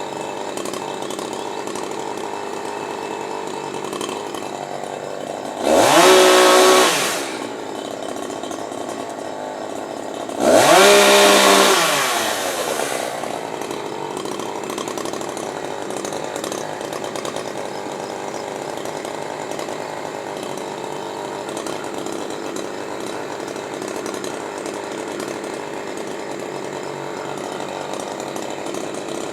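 Chainsaw idling steadily, revved up twice: a short rev about six seconds in and a longer one about ten seconds in, each rising in pitch and then dropping back to idle.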